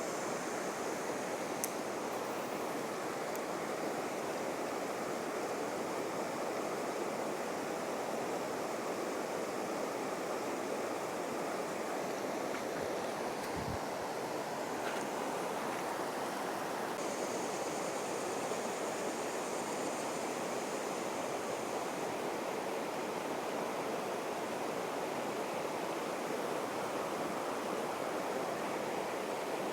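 Flowing stream water rushing steadily, with one small click about two seconds in and a brief low thump midway.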